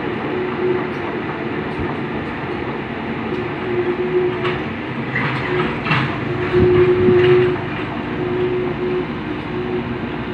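Komatsu PC78 excavator working: its diesel engine runs steadily under load, a hydraulic whine comes and goes, and there are a few clanks around the middle, the loudest lasting about a second.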